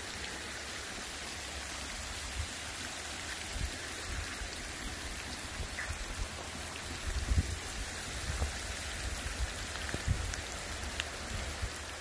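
Heavy rain falling steadily, a dense even hiss, with irregular low thumps from about two seconds in.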